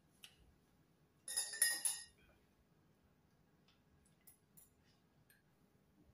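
Eating utensils clinking against a ceramic bowl and plate: a cluster of ringing clinks about a second and a half in, then a few light ticks.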